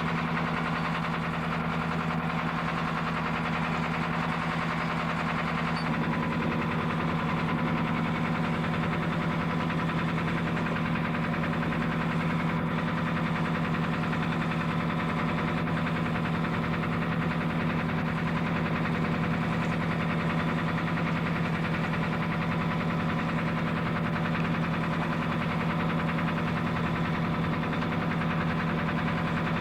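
Boat engine running steadily at a constant pitch, its note shifting slightly about six seconds in.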